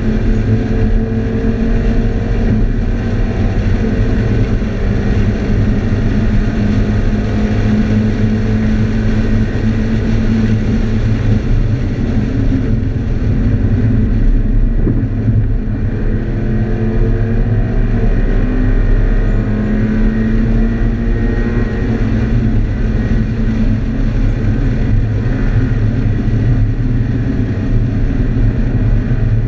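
Scion FR-S's 2.0-litre flat-four engine at track speed, heard from inside the cabin over heavy road and wind noise, its pitch rising and falling several times as it accelerates and slows.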